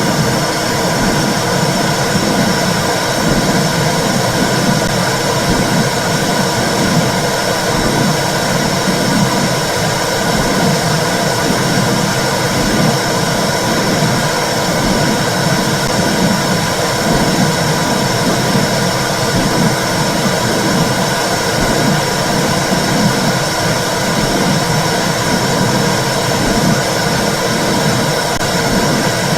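Womb sound played to soothe babies: a loud, steady rushing noise with a low pulse repeating evenly underneath.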